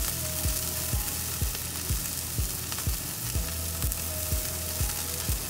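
Corn and king oyster mushrooms sizzling on a hot gas barbecue grill, a steady crackling hiss as they are turned with tongs. A soft low thump repeats about twice a second underneath.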